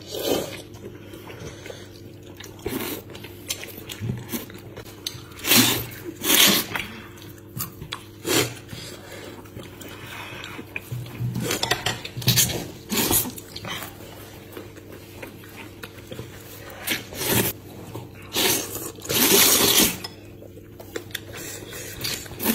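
Wide, flat belt noodles being slurped up from chopsticks in a string of noisy slurps, some short and some drawn out, the longest near the end, with chewing in between. A steady low hum runs beneath.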